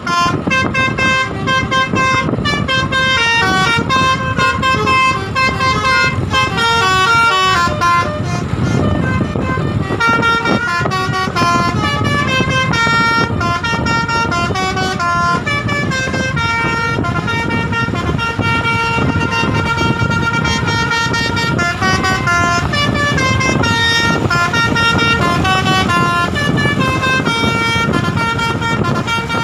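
Indonesian bus 'telolet' Basuri musical air horns playing fast melodic runs of stepped notes, over the low rumble of bus engines.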